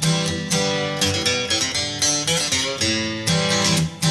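Background music: a plucked acoustic guitar playing a steady run of notes.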